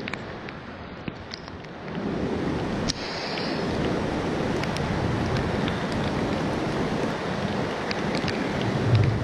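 Rain and wind of a thunderstorm, a steady rushing hiss that gets louder about two seconds in, with scattered ticks of drops and a low rumble near the end.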